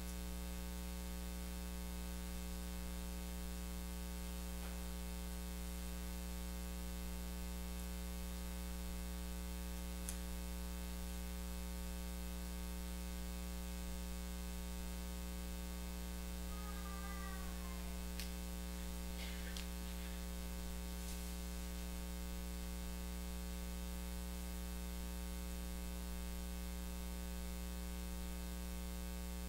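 Steady electrical mains hum with a hiss beneath it, from the audio system. A few faint clicks and one brief, faint falling sound come about halfway through.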